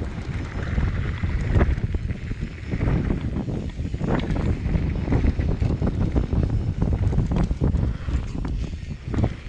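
Mountain bike descending a dusty dirt trail at speed: wind buffeting the microphone, tyres rolling on dirt and the bike clattering over bumps in frequent short knocks.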